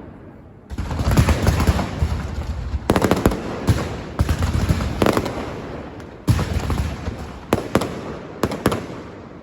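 Firecrackers going off in dense, rapid crackling volleys, with louder single bangs among them. They start after a brief lull at the beginning.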